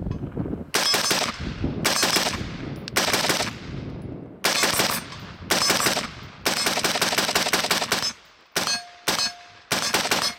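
Palmetto State Armory 20-inch A2-style AR-15 rifle firing .223 Remington in rapid semi-automatic strings of several shots each, every string trailed by a fading echo. The longest, fastest string comes about two-thirds of the way through, followed by a few spaced shots near the end.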